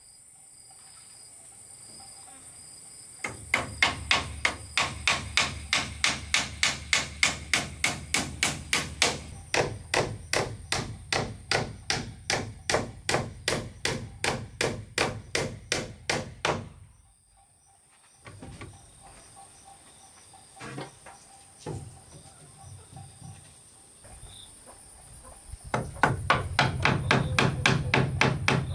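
Hand hammer striking the wooden frame of a cabin in a fast, steady run of blows, about three a second. The blows stop about two-thirds through, a few lighter knocks follow, and hammering starts again near the end. A steady high insect trill runs underneath.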